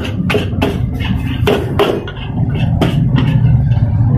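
Metal spatula striking a wok as fried rice is tossed, in quick strikes about three a second for the first two seconds, then a few sparser ones. Under them runs a steady low rumble.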